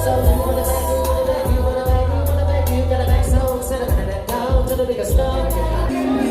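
Live hip-hop music: sung melodic lines over a heavy bass and a steady hi-hat beat, the bass cutting out briefly near the end.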